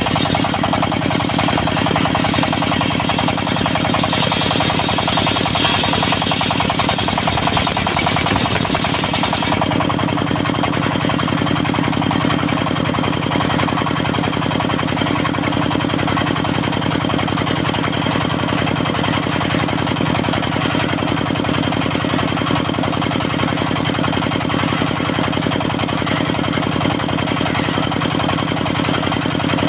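Diesel engine of a mobile circular sawmill running steadily, with the circular saw cutting teak timber for the first ten seconds or so. The harsh, hissing cutting noise then stops abruptly and the engine runs on alone.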